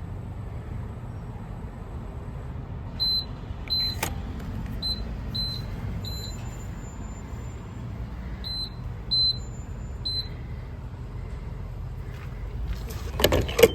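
Gas pump keypad beeping as its buttons are pressed: about eight short, high beeps spread over several seconds, over a steady low rumble. A clatter near the end.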